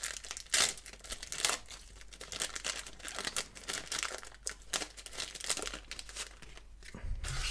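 Foil-lined paper wrapper of a 1990/91 Pro Set football card pack being torn open and pulled apart by hand: irregular crinkling and tearing throughout.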